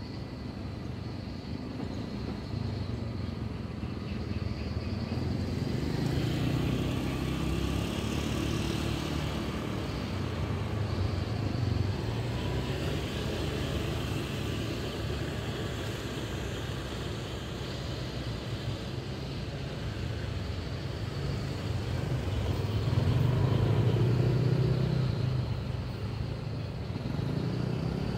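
Road traffic going by in a steady rumble, with a louder vehicle passing a few seconds before the end.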